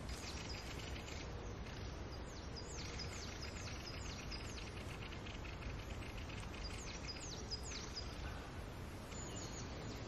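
Songbird singing in the forest: several phrases of quick, repeated down-sweeping high notes, each phrase about one to two seconds long with short gaps between, over a steady low background hiss.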